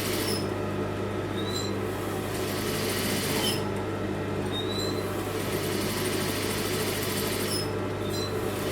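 Electric sewing machine running steadily as it stitches a seam, with an even motor hum and a few brief high squeaks.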